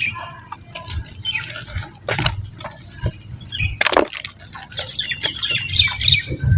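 Soft, water-soaked mud lumps crumbling, with irregular crunching, crackling and sharp snaps, the loudest about four seconds in, and a run of short squeaky sounds near the end.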